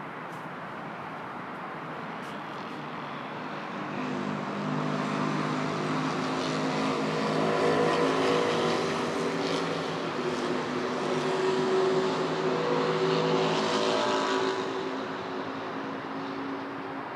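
Steady road traffic hum, with a single engine coming up about four seconds in, running loudly for around ten seconds and fading away near the end.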